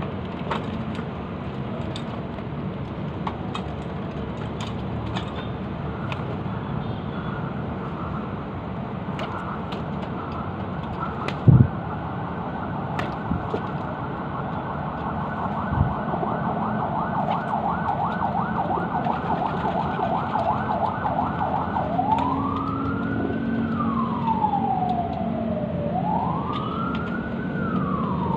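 Emergency vehicle siren: a fast warbling yelp comes in about a third of the way through, then switches a few seconds before the end to a slow wail rising and falling about every four to five seconds. A single loud thump sounds near the middle, over a steady background rumble.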